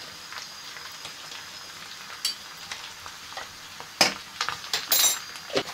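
Boiled potatoes and spices frying in oil in a pan with a steady sizzle, as a spatula stirs them. The spatula scrapes and knocks against the pan, sharply about four seconds in and again in a short clatter around five seconds.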